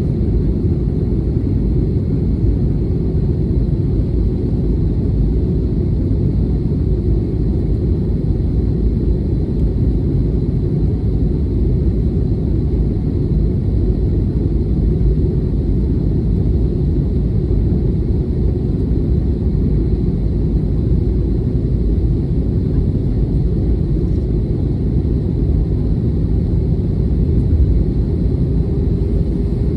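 Steady low rumble of a jet airliner in flight, engine and airflow noise as heard inside the passenger cabin.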